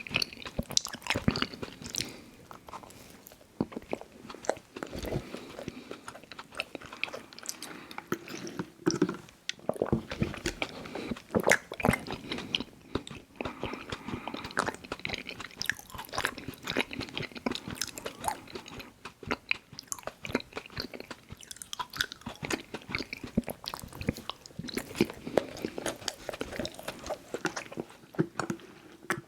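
Close-miked mouth sounds of someone biting and chewing Little Debbie Birthday Cakes, frosted snack cakes: a dense, irregular run of wet smacks and clicks.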